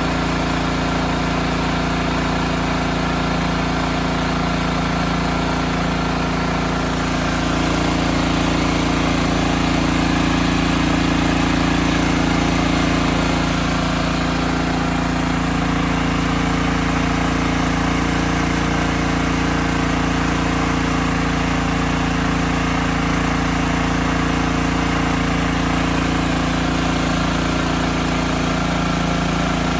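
Champion 100520 open-frame inverter generator's 420cc single-cylinder engine running steadily at about 3,400 rpm. It grows a little louder for a few seconds about a quarter of the way in.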